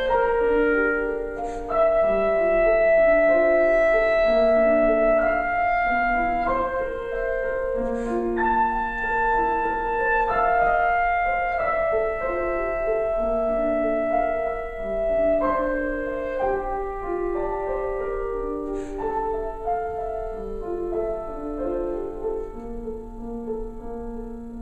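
Clarinet and piano playing contemporary classical music together: long held clarinet notes over shifting piano notes and chords.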